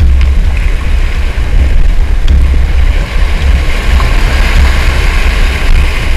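A campervan's front wheel drives through a shallow river ford, splashing and throwing up spray, louder in the second half of the crossing. A heavy low rumble sits under it throughout, from the side-mounted camera's microphone.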